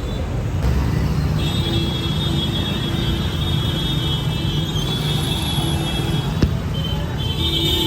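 Street traffic: a steady low rumble of motor vehicles, with a high steady tone that comes and goes over it and a single sharp click about six seconds in.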